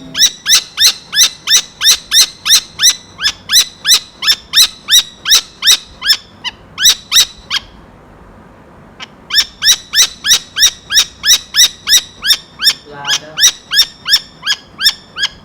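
Saker falcon calling: a rapid series of sharp, high repeated calls, about three or four a second, in two long runs with a short pause around the middle.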